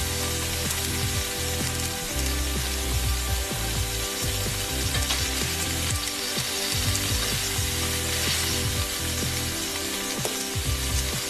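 Hot oil sizzling steadily with many small pops as battered cauliflower fritters deep-fry in a steel kadai.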